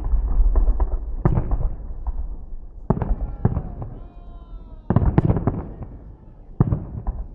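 Fireworks salute bursting in the sky: a series of sharp bangs a second or two apart, with a cluster of several about five seconds in, each followed by a rolling echo.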